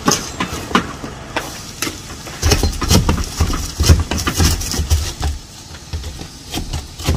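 Pneumatic roofing nail guns firing in quick, irregular shots. An engine rumbles low underneath for a few seconds in the middle.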